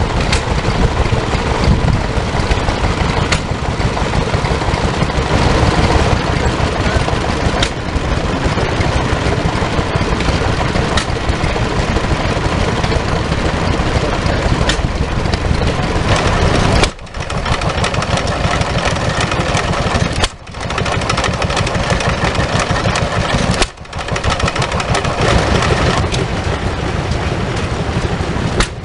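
Small single-cylinder vintage stationary engines running steadily, one belt-driving a water pump. The sound drops out briefly three times in the second half.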